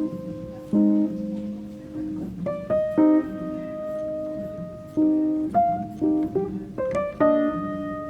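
Background instrumental music: gentle plucked and keyboard-like notes, each struck and fading, in an unhurried melody.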